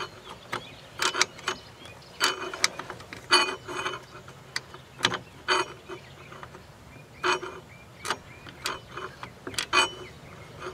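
Irregular metallic clicks and scrapes, some ringing briefly, as the flat end of a lug nut wrench turns the star-wheel adjuster of a 1998 Chevy Lumina's rear drum brake to expand the brake shoes.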